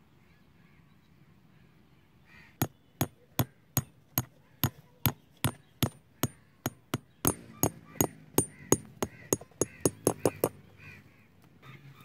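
Hammer blows on a peg driven into dry ground: about two dozen sharp knocks, evenly paced at first and quickening toward the end before they stop.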